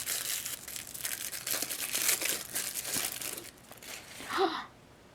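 Small doll packaging being opened by hand: a run of quick crinkling and tearing noises that stops about three and a half seconds in, followed by a brief murmur of voice.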